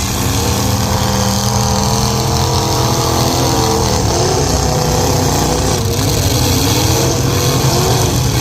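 Several car engines running at once and revving, their pitch rising and falling in overlapping swells, as demolition derby cars do.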